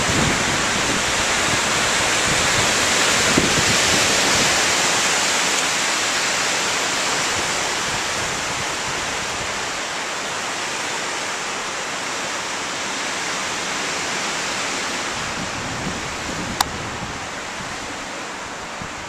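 Wind rushing steadily through the conifer branches, swelling a few seconds in and then slowly easing off. A single sharp click comes near the end.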